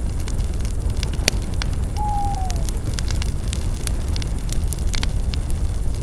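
Bonfire of spruce branches burning, with a steady low rumble and many sharp crackles and pops. About two seconds in, a short whistle falls in pitch.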